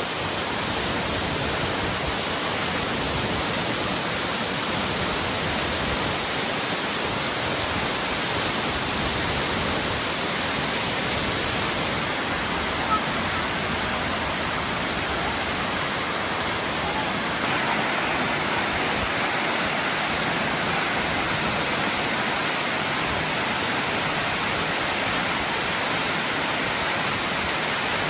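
Waterfall in heavy flow: a steady, unbroken rush of falling water.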